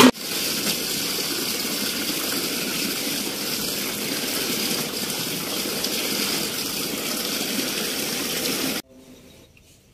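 Tap water running into a steel basin of soapy water as clothes are rinsed and dunked by hand; a steady rush that cuts off abruptly near the end.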